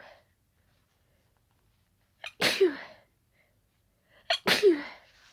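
Two wet sneezes about two seconds apart, each with a brief sharp catch just before it. They are an allergic reaction to smelling daisies.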